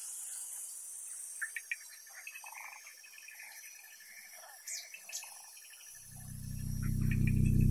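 Faint outdoor nature ambience: an insect trilling steadily in an even pulse, with scattered short chirps over a soft hiss. About six seconds in, a low droning music chord fades in and grows louder.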